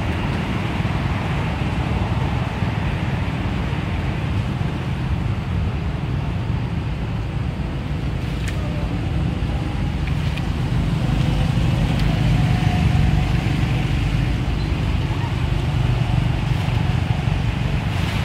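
Steady low rumble of wind buffeting the microphone, with a faint hiss above it, swelling slightly partway through.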